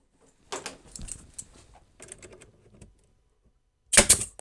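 Pneumatic stapler firing a staple into thin RV wall paneling: one sharp shot about four seconds in. Before it come a few light clicks and rattles.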